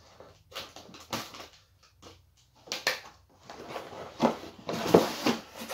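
Taped cardboard shipping box being opened by hand: scattered light clicks and scrapes as the tape seam is worked open, then louder scraping and rustling of the cardboard flaps being pulled apart from about three and a half seconds in.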